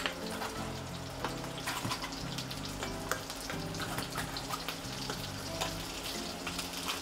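Sea bream, tomatoes and garlic sizzling in olive oil in a frying pan, while raw clams in their shells are set into the pan with a few light clicks. A soft background melody plays underneath.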